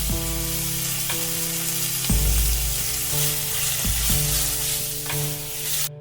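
Food sizzling in a hot frying pan: a steady hiss that cuts off suddenly near the end, over soft background music.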